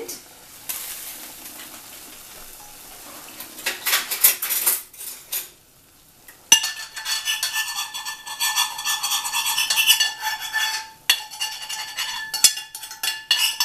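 Stainless-steel cookware clattering as a pan is lifted off a steaming pot of water. After a short lull comes a sharp clink and several seconds of busy metallic rattling and scraping with a ringing tone, then a few separate clinks near the end.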